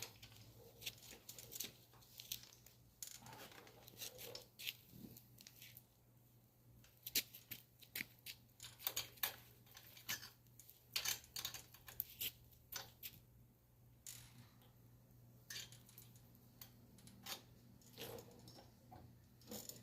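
Irregular sharp clicks, taps and scrapes of hand tools at work on a motorcycle wheel during a tube change, coming in quick clusters with a busy stretch in the middle.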